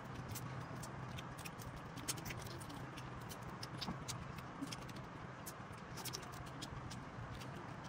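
Eating sounds: many small, irregular clicks and cracks as cooked crab shells are picked apart and eaten by hand, over a steady low hum.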